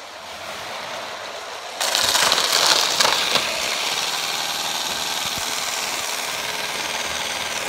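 Motorised Lego high-speed passenger train running along plastic track: a steady whirr and rattle of its motor and wheels, which gets much louder about two seconds in as it runs right past.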